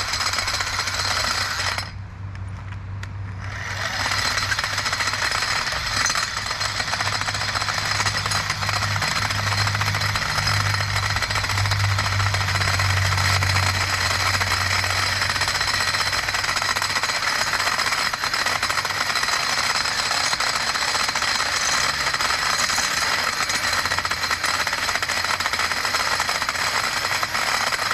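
Ryobi 18V cordless cultivator running with its tines chopping and rattling into hard, dry clay. The motor lets off briefly about two seconds in, then runs on steadily.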